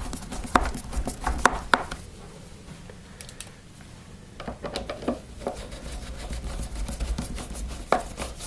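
Irregular clicks and light knocks of screws being driven into a Miele vacuum cleaner's plastic housing and of plastic parts being handled, with a quieter stretch in the middle.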